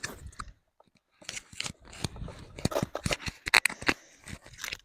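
Microphone being handled and moved: irregular rustling, scraping and clicks right on the mic, with a brief pause about a second in.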